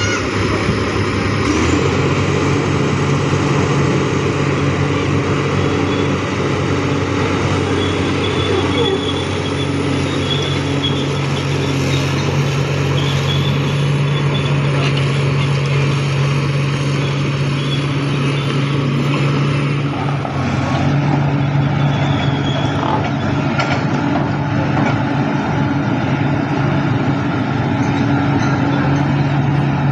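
Heavy diesel engine running steadily, its note shifting slightly about two seconds in and again about twenty seconds in.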